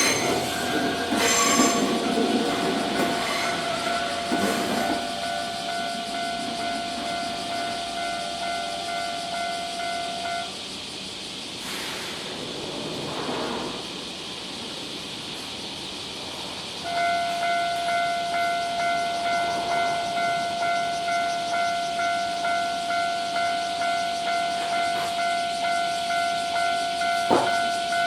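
Japanese level crossing warning bell ringing in a rapid, evenly repeating electronic ding, while the rumble of a passing train fades over the first few seconds. The bell stops about ten seconds in, then starts again about six seconds later, warning of the next train.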